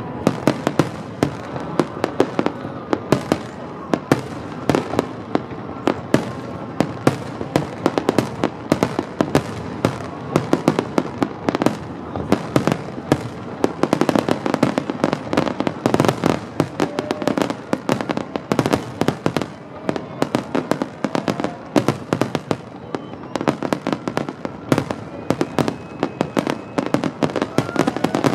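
Fireworks display in a dense barrage: aerial shells bursting several times a second, one on top of another, with no let-up.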